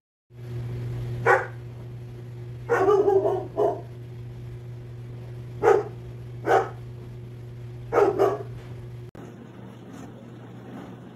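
Six short, loud calls, some in quick pairs, over a steady low hum; the hum stops abruptly about nine seconds in.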